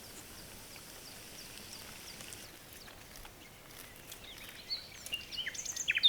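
Birds chirping against a steady outdoor background hiss, with a busier burst of short, high chirps near the end.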